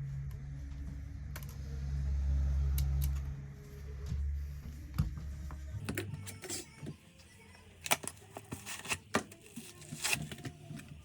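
Small, sharp clicks and taps of tools and parts being handled during an iPhone screen repair. They come irregularly from about halfway through, after a low musical bass line that fades out.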